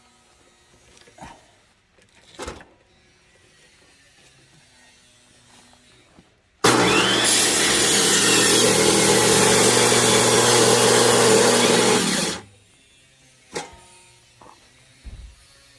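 Chainsaw cutting through a log at full throttle for about six seconds, starting and stopping abruptly in the middle of the stretch. A few short wooden knocks come before and after it.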